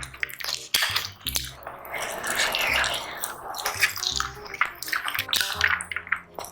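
Close-miked eating: wet chewing and slurping with many sharp smacking clicks, over background music.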